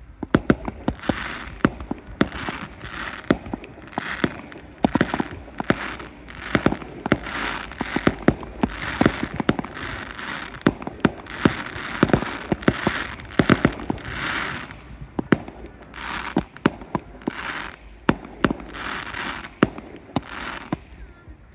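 Fireworks display: a rapid, uneven string of sharp bangs from shells and launches. Between the bangs come bursts of hiss about once a second. It all begins suddenly and dies away just before the end.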